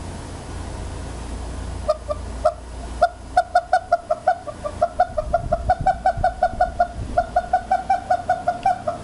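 An animal's short, identical pitched calls, starting about two seconds in and running on at about four to five a second, over a low hum.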